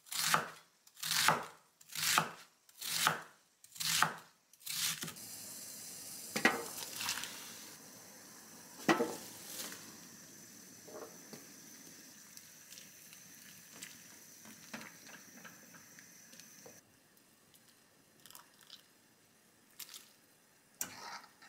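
Chef's knife chopping napa cabbage on a wooden cutting board, about one stroke a second for the first four seconds. Then a steady hiss of cabbage blanching in a pan on a gas burner, with a few sharp utensil knocks. The hiss drops off about two-thirds of the way through, and a ladle clinks near the end.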